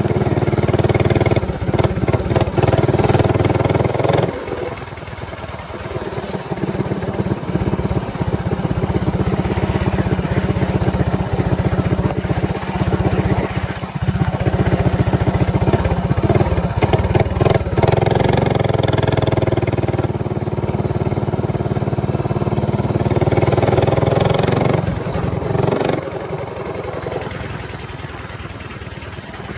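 Motovox minibike's modified Predator 224cc single-cylinder four-stroke engine running under way, its revs rising and falling as it is ridden. The engine is loud at the start, drops back a few seconds in, picks up again later, and eases off near the end.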